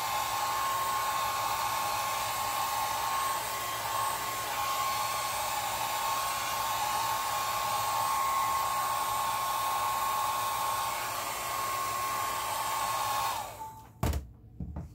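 Small handheld hair dryer blowing steadily, its motor giving a thin steady whine over the rush of air. Near the end it is switched off and the whine falls away, followed by a couple of short knocks.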